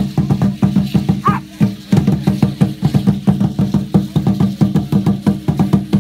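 Aztec dance drum played in a fast, even beat, with a short break about a second and a half in. A dog gives a short high whine about a second in.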